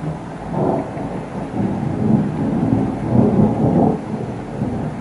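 Thunder rumbling: a low, rolling peal that builds over a few seconds, is loudest about three seconds in, then eases off.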